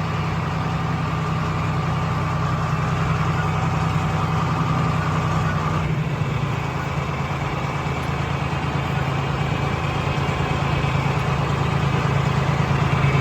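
John Deere 4020 tractor engine running steadily, its tone shifting slightly about six seconds in.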